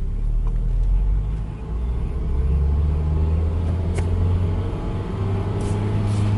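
Honda Fit being driven, with a steady low rumble from the engine and road. A faint, brief high squeak comes about four seconds in and again near the end.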